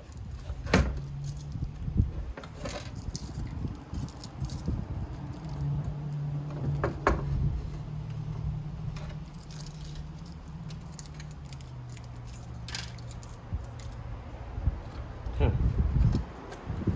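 Scattered small metallic clicks and clinks from handling iMac parts and loose screws during disassembly, over a low steady hum.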